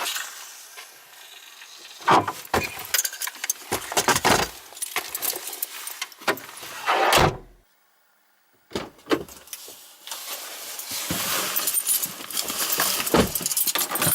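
Irregular clattering and rustling, as of things being handled, with a sudden drop to silence for about a second around the middle.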